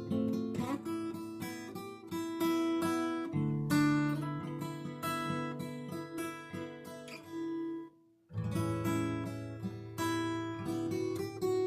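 Solo acoustic guitar playing a melody of plucked notes and chords, stopping briefly about eight seconds in before the playing resumes.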